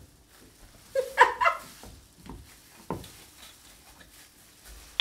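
A short wordless vocal exclamation about a second in, among a few sharp knocks and clicks from a wine bottle being handled and opened.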